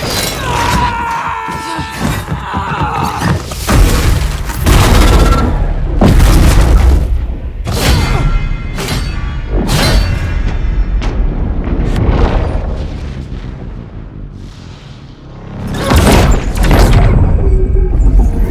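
Sound-designed fight effects: a dense run of heavy punches and booming impacts with glass shattering, over music with a deep rumbling low end. The hits thin out and the level eases in the middle, then swell back up with another heavy burst near the end.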